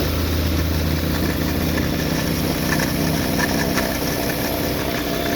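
Hyundai Veloster four-cylinder engine running steadily at a raised idle near 1000 rpm, with faint light ticks from about two seconds in. This is the small noise being traced in the accessory belt drive, where the belt is worn and slipping and the idler pulley bearing is suspected.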